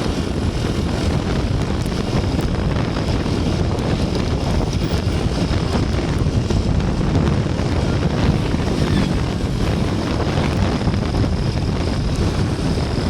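Steady rumble of a running vehicle with road noise, and wind buffeting the microphone.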